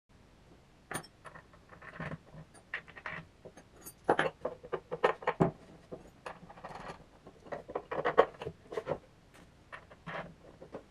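Irregular clicks, taps and short scrapes of small hard objects being handled, with a few sharper knocks in the middle stretch.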